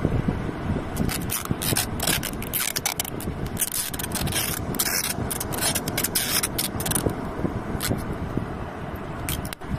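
Clear adhesive tape being pulled off the roll and wound around a firecracker on a drink can: a run of crackly peeling and rubbing, densest about four to five seconds in. Under it runs a steady low rumble of wind and surf.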